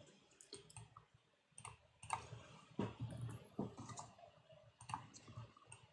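Faint, irregular clicks of a computer keyboard and mouse as a search is typed in.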